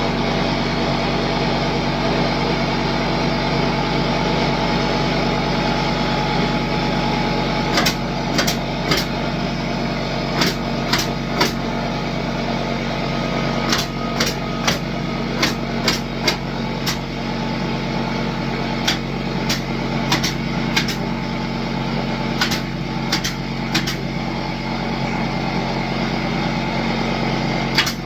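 Steady engine drone running without a break. From about eight seconds in, a scattered run of about twenty sharp clicks and knocks comes over it.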